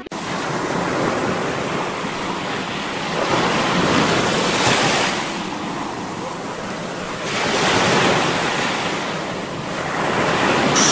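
Sea waves and wind on open water: an even rush that swells and eases in three slow surges.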